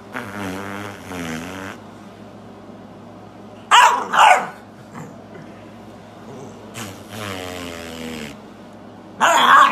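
Basset hound puppy on its back, playing: wavering, grumbling growls, broken by two loud sharp barks about four seconds in and another loud bark near the end.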